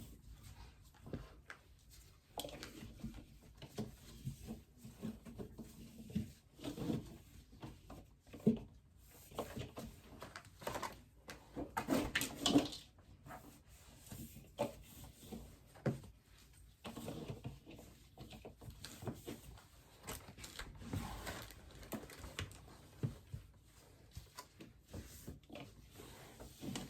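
Irregular knocks, clatters and rustles of items and fridge parts being handled while a mini fridge is cleaned out, with the loudest burst of handling noises about halfway through.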